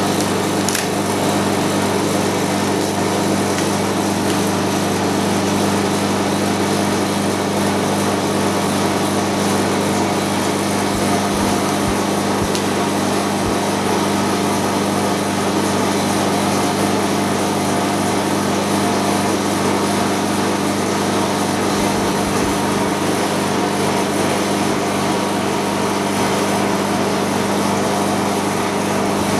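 LCD-separating freezer machine running with a steady mechanical drone and low hum, its refrigeration unit working continuously.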